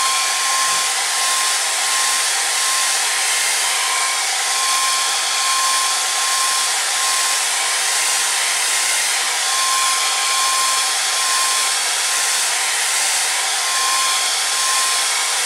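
Handheld hair dryer running steadily, a loud rush of air with a thin steady whine, blowing on wet watercolor paint to dry the layer.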